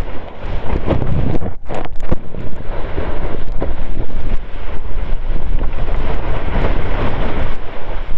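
Wind buffeting a board-mounted camera's microphone, loud and uneven, mixed with the rush and scrape of a snowboard running fast over snow.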